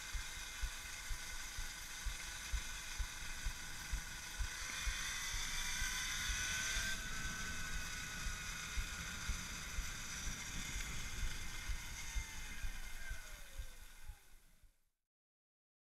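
Electric moped's brushless motor (Axi 5345/14HD) whining while riding, its pitch rising about five seconds in and falling again near the end, over wind noise and repeated low thumps on the microphone. The sound fades and cuts off shortly before the end.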